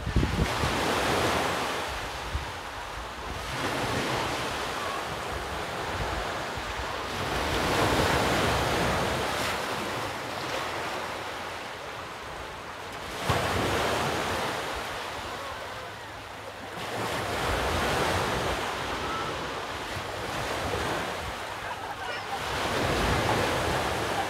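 Sea waves breaking on the shore, the surf swelling and fading about every four seconds, with wind rumbling on the microphone.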